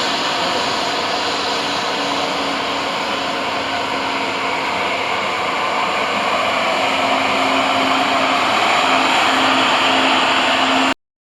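Airbus A220's Pratt & Whitney PW1500G geared turbofan engines running, a steady rushing noise with a faint low hum; it cuts off abruptly near the end.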